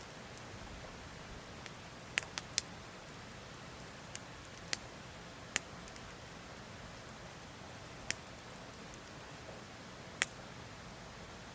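Wood fire crackling: sharp pops, three in quick succession about two seconds in, then single pops every second or two, over a steady faint hiss.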